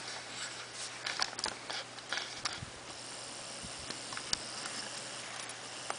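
Quiet handling noises: scattered light clicks and rustling, one sharper click about four seconds in, over a faint steady hum.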